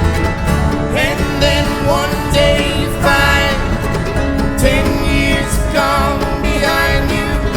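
Country-style music with plucked strings and a melody line.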